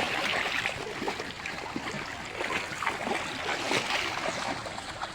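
Floodwater splashing and churning, with many small irregular splashes over a steady rush of water.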